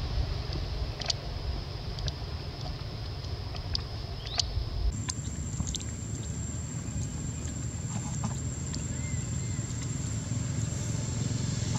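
Outdoor background ambience: a steady low rumble with a few faint clicks and a thin steady high tone that jumps higher about five seconds in.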